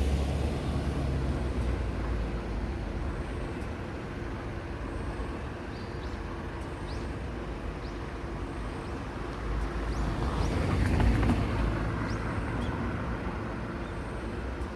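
Road traffic at a crossroads: a steady rumble of cars and heavier vehicles, with one passing close and louder about ten seconds in.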